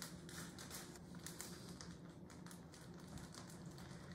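Faint, irregular light clicks and crinkling of a plastic zip-top bag being opened and filled with soft cannoli filling scooped from a plastic bowl with a rubber spatula.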